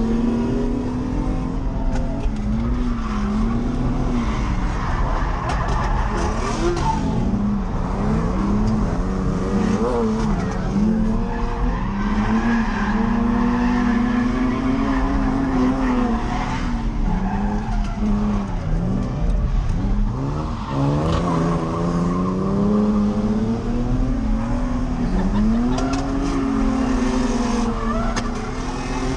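Nissan 350Z's V6 engine revving up and down over and over as the car is drifted, pitch rising and falling every second or two, over a steady rush of tyre and road noise.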